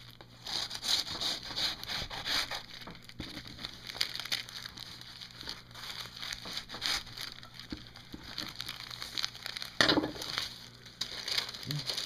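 Serrated knife sawing through cardboard, an irregular scratchy rasping with paper crinkling, and a single thump near the end.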